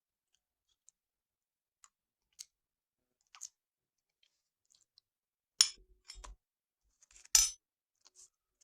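Spoon and bowl clinking as yogurt is served: scattered light clicks, then two sharper clinks in the second half, a little under two seconds apart.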